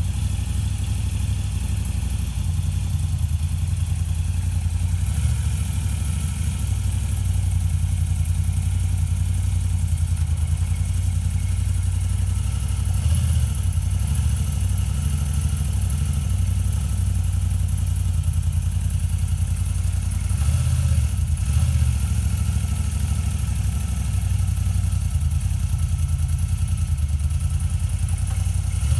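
Moto Guzzi V9 Bobber's air-cooled transverse V-twin running at a low, steady idle in first gear as the bike pulls itself up a loading ramp, with the engine note rising briefly about halfway through and again about two-thirds in.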